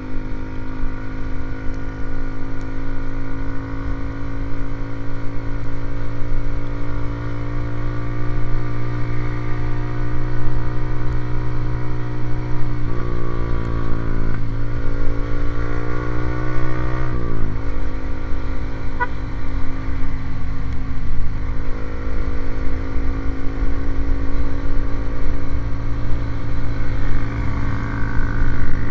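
Motorcycle with an aftermarket racing exhaust running at a steady engine speed. About two thirds of the way through, the engine note wavers and then drops in pitch, and it sounds rougher after that.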